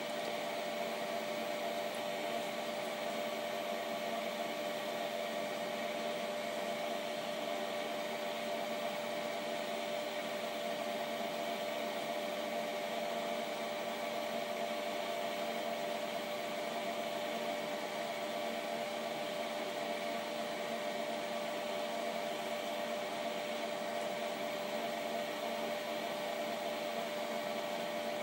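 Steady machine hum with a constant tone from the Denford Orac CNC lathe, switched on with its chuck at rest.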